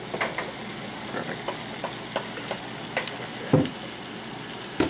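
Fish frying in hot oil: a steady sizzle with scattered crackling pops. Two louder knocks come about three and a half seconds in and again near the end.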